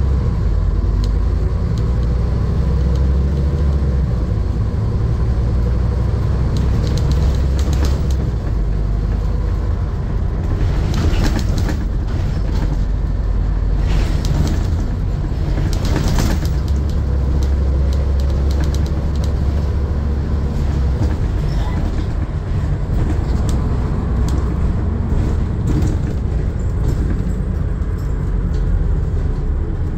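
Scania N230UD double-decker bus heard from inside the passenger saloon while under way: its five-cylinder diesel engine drones steadily along with road noise, the low rumble swelling and easing as the bus pulls. A few short knocks or rattles come around the middle.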